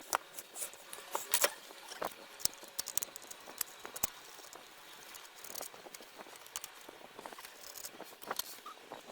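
A run of irregular light clicks and taps from small hard objects being handled, with the sharpest ones about a second and a half in.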